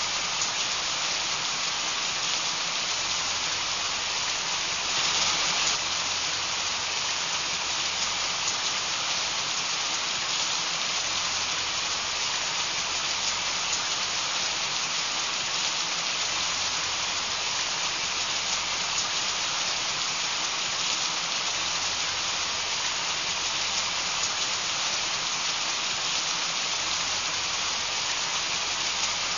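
Heavy rain (a downpour) falling, a steady dense hiss with a brief swell about five seconds in.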